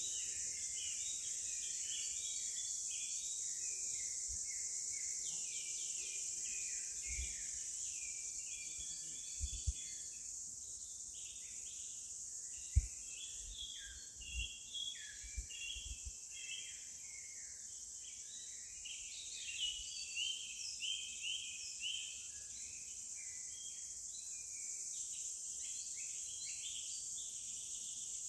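Forest ambience: many birds chirping over a steady, high insect drone. A few short low bumps come in the middle.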